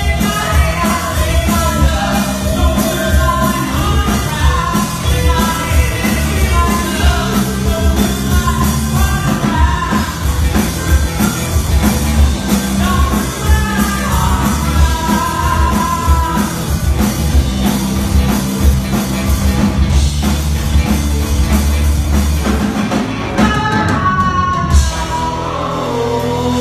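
Rock song: a lead vocal sung over a band with a steady drum beat and bass. The voice is strongest in the first half and comes back strongly near the end.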